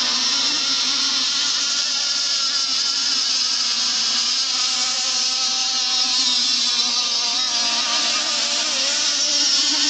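Several RC racing boats' small engines whining at high revs together, a buzzing chorus whose pitches waver and overlap as the boats run the course.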